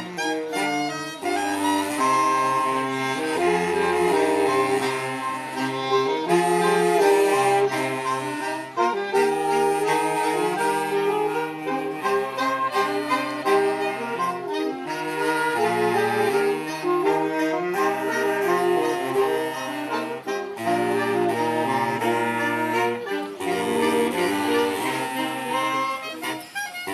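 Isan folk music played on reed wind instruments: a busy melody of quickly changing notes over a moving bass line.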